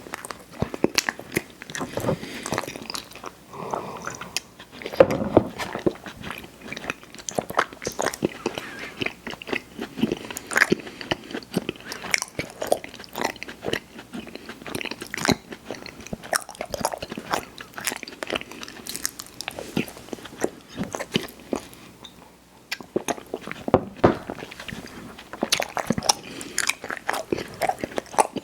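Close-miked eating: a person biting and chewing, a dense run of sharp clicks and wet mouth sounds, with a short lull about three-quarters of the way through.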